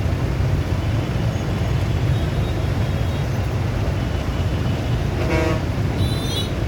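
Steady low traffic rumble with a short vehicle horn toot about five seconds in, and a brief high-pitched toot near the end.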